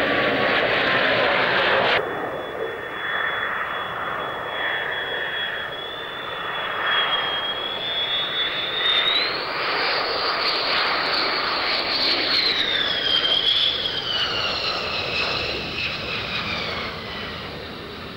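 Jet noise from F-15E Strike Eagles landing: the rumble of twin turbofans with a high turbine whine. The sound changes abruptly about two seconds in. The whine rises about nine seconds in and slides down again near the end as the jet passes.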